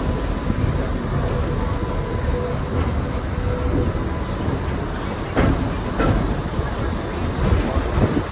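Streetcar running along its track, heard from on board: a steady rumble of wheels and running gear, with two sharp knocks about five and six seconds in.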